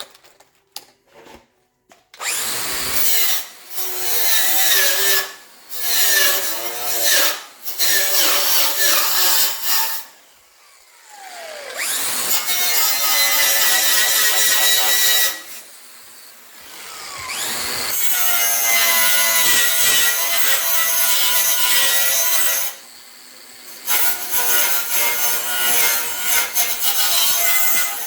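Angle grinder buffing rust off steel to prepare it for welding, run in several long bursts with short pauses. Its whine sags in pitch as it bears down on the metal and recovers as it eases off.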